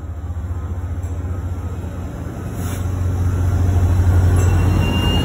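Metro-North F40PH diesel locomotive's engine running with a low rumble as it passes close by. It grows louder about halfway through, and a faint rising whine joins near the end.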